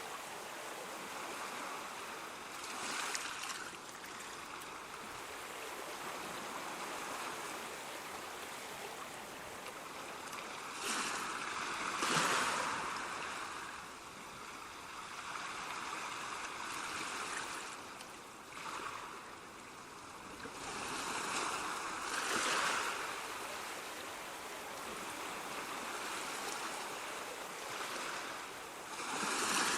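Ocean waves washing on a shore: a steady rush of surf that swells as waves break, several times, the biggest about twelve seconds in.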